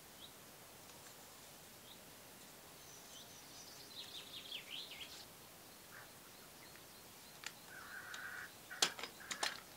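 Birds calling: a songbird's quick run of falling chirps about four seconds in, and harsher calls near the end. A few sharp clicks near the end come from the sealant dispensing gun being worked.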